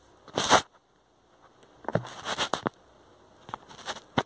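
Rustling and clicking handling noise: a loud scuffing rustle about half a second in, then a cluster of rustles and small clicks around the middle, and a few sharp clicks near the end.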